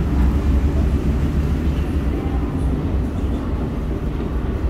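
The Star Ferry's engines running: a steady low rumble.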